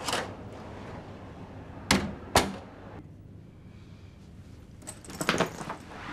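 Sharp knocks and clicks of a door and luggage: a click at the start, two loud knocks about two seconds in, then a cluster of clicks and rustles about five seconds in as a suitcase is handled on a bed.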